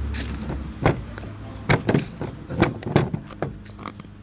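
A rifle scope and its packaging being handled: a series of sharp clicks and knocks, five or six spread across a few seconds.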